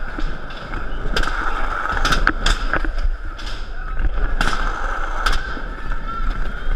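Skateboard wheels rolling over a hard park floor with a steady rushing hum, broken by several sharp clacks and knocks of boards.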